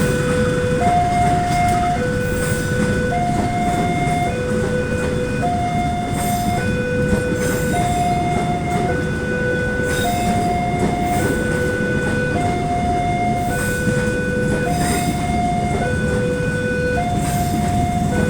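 A railway level-crossing warning alarm sounding two alternating tones, each held about a second, over the steady rumble of a train rolling slowly across the crossing.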